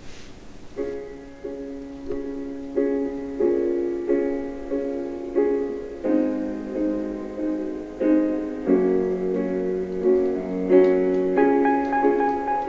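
Piano music without singing: after a brief pause, repeated chords and notes begin about a second in and carry on in a steady rhythm.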